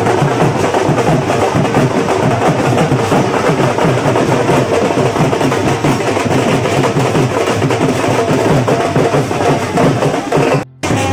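Loud music driven by a fast, steady drum beat, which cuts out briefly near the end.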